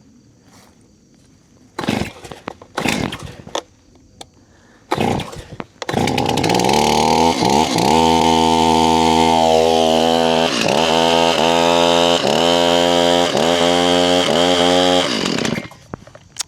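Stihl MS 271 Farm Boss two-stroke chainsaw being pull-started on full choke: two short pull-cord bursts, then about six seconds in the engine catches and runs for about ten seconds. Its speed dips briefly several times, and it stops near the end.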